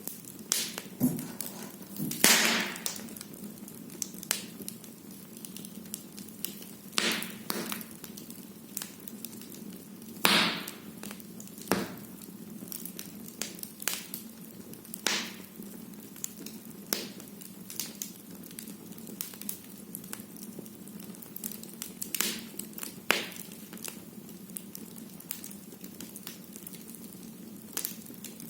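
Firewood burning in a fireplace, crackling steadily with irregular sharp pops and snaps.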